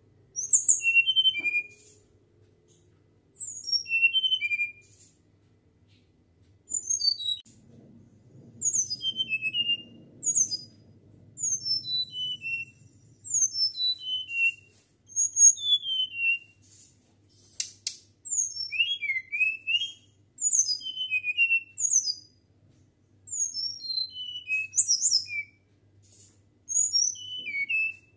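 Caged flycatcher (sikatan) singing a flute-like song in short phrases of high, mostly falling whistled notes, with a new phrase about every two seconds.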